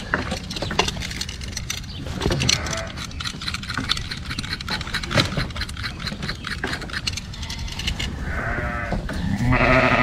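Sheep bleating a few times, the loudest calls near the end, over quick scratchy scraping of a utility-knife blade through a ewe's fleece at the skin as she is checked for lice.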